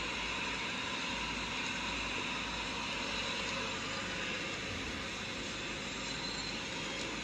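Hot oil sizzling steadily in a large kadai as a batch of batter balls deep-fries.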